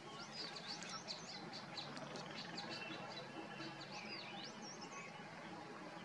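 Songbirds chirping and twittering in quick, high-pitched notes over a steady low background hum. The notes come thickest in the first half and again around the fifth second.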